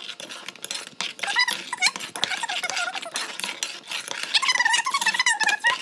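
Metal spoon stirring and scraping a steel pot of milk, with small clicks against the pot. A high, wavering squeaky whine comes in about a second and a half in and is strongest near the end.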